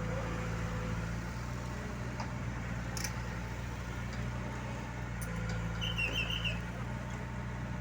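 Diesel engine of heavy construction equipment running steadily at a low, even speed. A single sharp tick comes about three seconds in, and a brief high chirp near the end.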